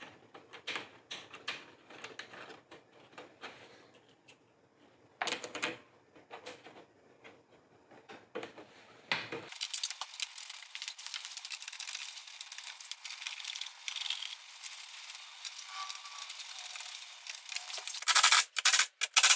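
Small metal clicks and rattles of nuts being threaded by hand onto the window's mounting studs. About a second before the end, a cordless impact driver starts rattling in short bursts as it runs the nuts down.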